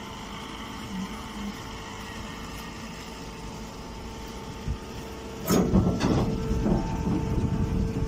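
Straw baling machine humming steadily with a constant tone. About five and a half seconds in, much louder rustling and clattering start and carry on.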